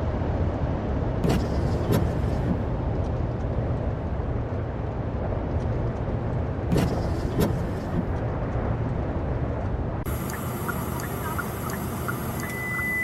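Road vehicle noise: a steady low rumble with two pairs of sharp knocks, about a second and seven seconds in. About ten seconds in the sound changes abruptly to a different, thinner background.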